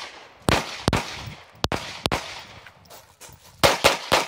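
Smith & Wesson M&P9 2.0 9mm pistol firing about seven shots in short strings: two pairs, then three in quick succession near the end.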